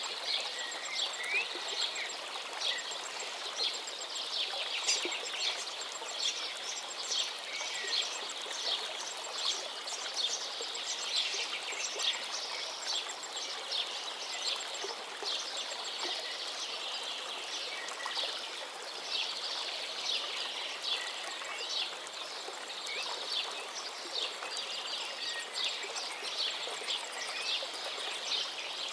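Many small birds chirping and trilling together in a dense, continuous chorus, over a steady background hiss.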